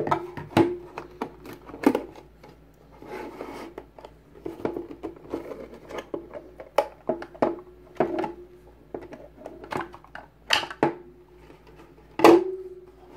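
Many scattered plastic clicks and knocks from a Logitech Z200 speaker's housing and kickstand being handled and worked apart. Several knocks are followed by a short hollow ring.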